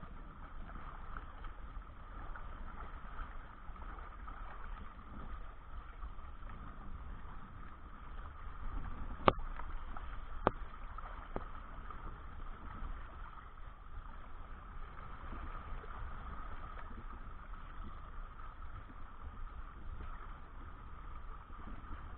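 Small kayak trimaran under way under its 2.5 hp four-stroke outboard: a steady rush of water along the hull with a constant motor drone, heard muffled. Two sharp knocks come about halfway through.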